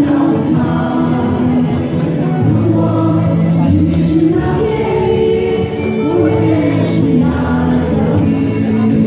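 Amateur choir singing a folk song together, several voices in unison with sustained musical accompaniment underneath.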